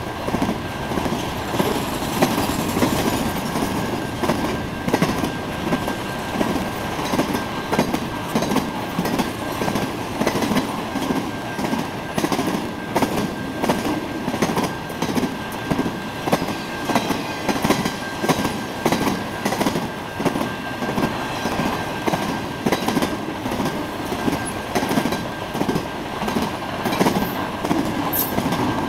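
Intermodal freight train's cars rolling past: a steady rumble and rattle of wheels on rail, beating regularly as the trucks cross rail joints, with a thin steady high tone over it.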